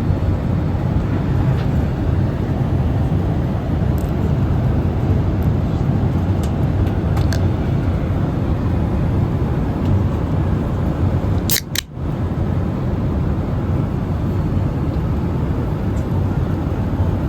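Steady low rumble of cabin noise aboard a Boeing 787-8 Dreamliner in cruise: engine and airflow noise heard from inside the cabin. About twelve seconds in there is a sharp click and a momentary drop in the noise.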